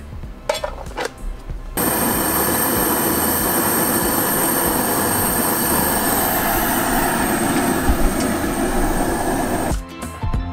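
Homemade gas jet burner running at full flame: a loud, steady rushing noise with a faint high whine, starting suddenly about two seconds in and cutting off near the end.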